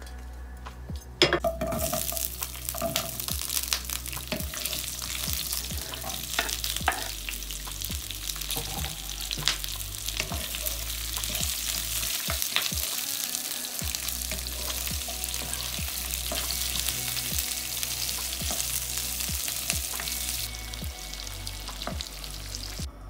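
Red onion and bell pepper chunks stir-frying in hot oil in a nonstick wok. A loud sizzle starts suddenly about a second in as the vegetables hit the oil, then keeps up steadily while a wooden spatula stirs with scattered clicks and scrapes. The sizzle drops away shortly before the end.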